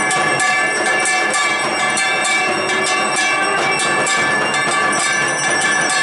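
Brass puja handbells rung rapidly and without pause during the aarti to the goddess, a dense, loud clanging with many overlapping ringing tones.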